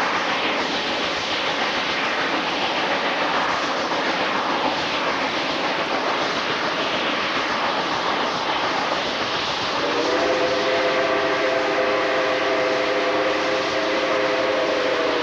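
Steam-hauled train running steadily, heard from an open coach window as a constant noise of wheels and wind. About ten seconds in, the locomotive's steam whistle blows one long, steady chord of several notes for about five seconds.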